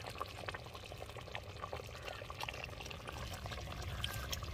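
Thick chicken gravy simmering in a pan on the stove, bubbling with many small irregular pops as it reduces.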